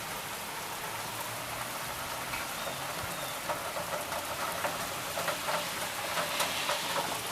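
Steady rain falling, with separate drops ticking more often from about halfway through.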